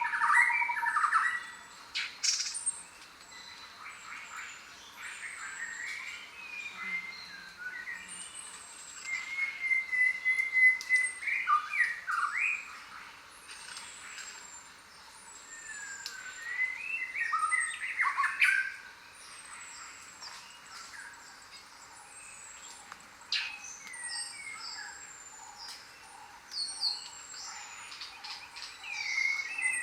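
Mixed chorus of jungle birds calling: a thin, high whistle that drops in pitch repeats every couple of seconds, over varied lower chirping calls and a short steady trill about ten seconds in.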